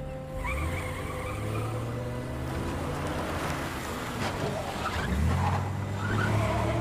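A car accelerating hard, its engine revving up twice while the tyres squeal.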